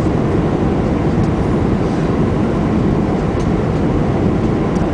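Steady roar of airflow and jet engines heard inside an airliner cabin on final approach, with flaps and slats extended.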